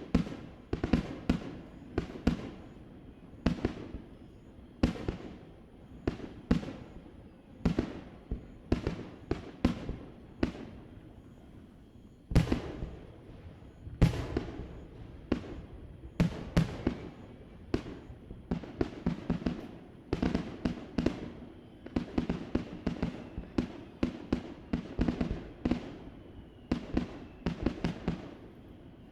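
Fireworks display heard from across the harbour: aerial shells bursting one after another, each sharp report followed by a rolling echo. The bursts start suddenly and come thicker and faster in the second half, several to the second.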